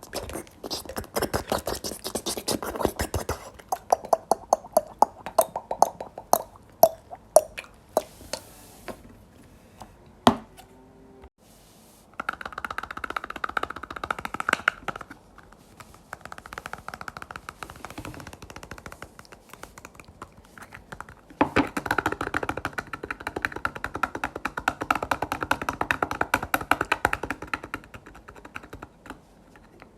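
Close-miked wet ASMR sounds: sticky crackling, sharp clicks and long bubbly stretches of rapid squelching. There is a quieter gap with one loud click about ten seconds in.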